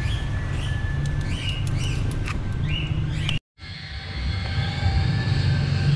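A metal spoon scraping and clinking against a wire mesh strainer of cooked boba pearls, over the steady low rumble of a lit gas stove burner. About halfway there is a brief cut to silence, then the rumble goes on.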